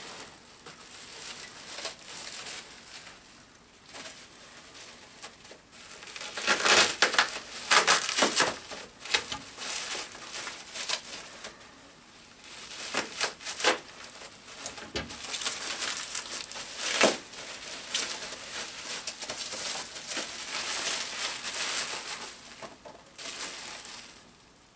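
Packing material being handled and pulled apart as items are unwrapped: irregular bursts of rustling with small clicks, loudest from about six to nine seconds in and again from about thirteen seconds in.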